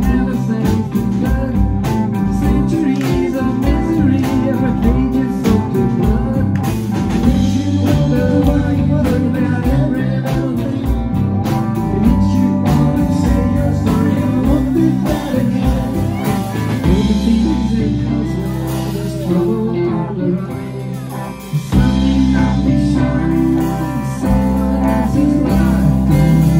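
Live rock band playing a song on electric guitars and a Yamaha drum kit, with a sung lead vocal. About two-thirds of the way through, the drums drop back for a few seconds under a held low note, then the full band comes back in.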